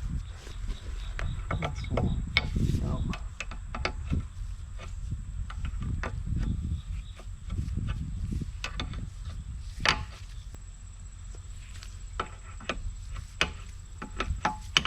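Scattered clicks and metal taps of a wrench working loose hydraulic fittings and hose heads on a forestry mulcher, with bits of handling rumble. A steady high insect drone sounds throughout.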